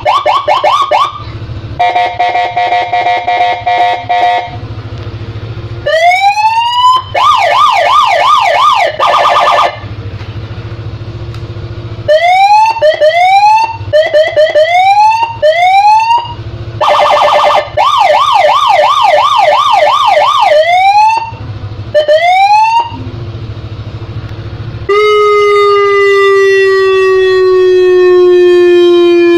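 Electronic motorcycle escort siren cycling through its tones. It plays fast rising-and-falling yelps, a choppy pulsed beep and short whoops that each rise in pitch, with brief gaps between the patterns. Near the end comes a long horn-like tone that slowly falls in pitch.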